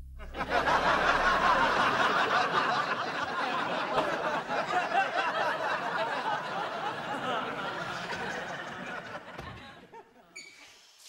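Studio audience laughing, swelling up about half a second in and slowly dying away over the next several seconds.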